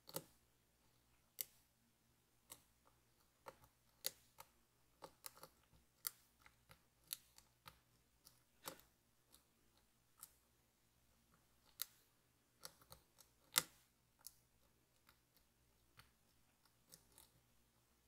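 Small, sharp clicks of a lock pick and tension wrench working the pins of an ASSA V10 lock, coming irregularly at about one or two a second with a few short pauses.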